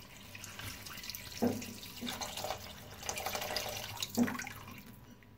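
Water poured from a jug into a wok of raw chicken pieces and whole spices, splashing steadily and tapering off near the end, as the water for a chicken yakhni stock goes in.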